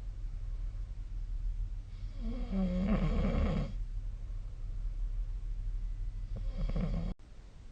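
A sleeping person snoring: a long snore a couple of seconds in that starts on a steady tone and turns rattly, then a weaker snore near the end, over a steady low hum. The sound cuts off suddenly just before the end.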